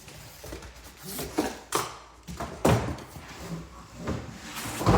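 An espresso machine being lifted out of its cardboard shipping box: a few sharp knocks and scrapes of cardboard and packing, about three knocks in the first three seconds, then louder rustling at the end.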